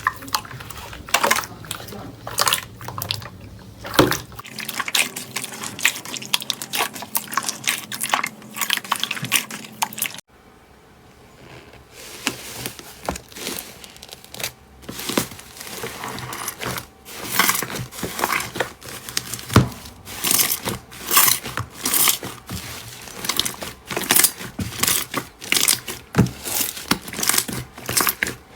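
Slime being squeezed and pressed by hand, giving a dense run of sticky pops and crackling clicks. It turns much quieter for a couple of seconds about ten seconds in.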